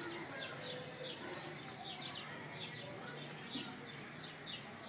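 Small birds chirping: a steady run of short, high, falling chirps, about three a second.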